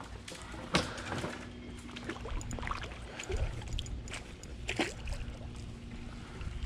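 Feet wading into shallow creek water: light splashing and sloshing, with a few sharp, irregular clicks.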